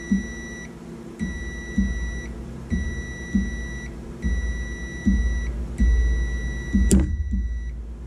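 Multimeter continuity beeper sounding a steady high beep in five stretches of about a second each, cutting in and out as the seatbelt warning microswitch closes and opens. This shows the switch is making and breaking contact. A sharp click comes near the end as the beeping stops.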